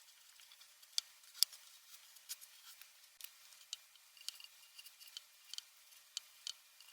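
Faint, scattered light clicks and taps, irregular, about one or two a second, with two sharper ones about a second in and half a second later.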